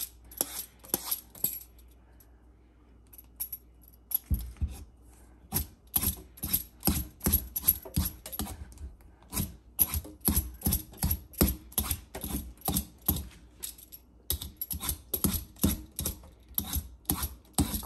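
Hand peeler scraping strips of skin off a green papaya in quick repeated strokes, about two to three a second, with a pause of a few seconds starting shortly after the first strokes.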